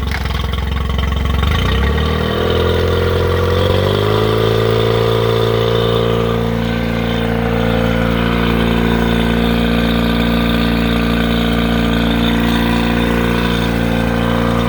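Carbureted outboard motor running in forward gear while flushed with water from a supply. Its note rises about two to four seconds in, then runs steady.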